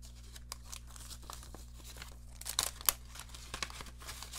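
Crinkling and rustling of a mint set's plastic coin pack and its card envelope being handled and folded together, with a few sharper crackles about two and a half to three seconds in.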